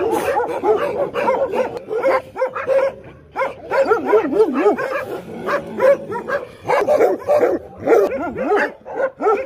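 Many dogs barking and yelping over one another in a dense, overlapping chorus, with a brief lull about three seconds in.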